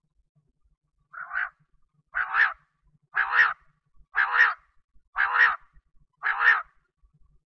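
Quail (bater) calling: six short, raspy two-part calls about one a second, the first one softer.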